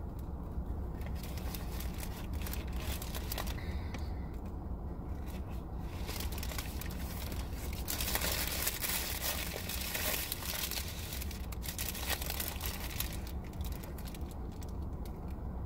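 Paper burger wrapper crinkling and rustling as it is handled and folded back from the burger, loudest in the middle, over a steady low hum.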